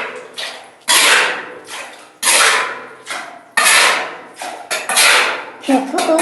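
Loud, sharp knocks or blows repeating about every second and a third. Each one dies away over about half a second and is followed by a softer knock.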